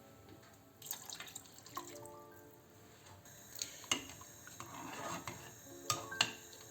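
Water dripping into a saucepan, with a few sharp clinks of the pan, over soft background music.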